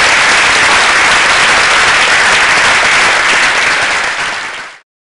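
Audience applauding steadily in a hall, then cut off abruptly a little before the end.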